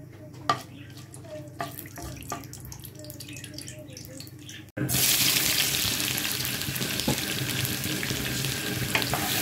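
Whole spices crackling softly in hot oil, with a few sharp pops. About five seconds in, a sudden loud, steady sizzle of sliced onions frying in the oil.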